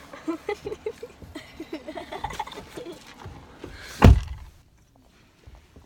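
Small knocks and rustles of someone climbing into a car, then a car door slammed shut with a heavy thunk about four seconds in.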